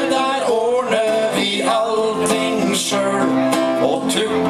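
Two acoustic guitars strummed with a man singing: live music.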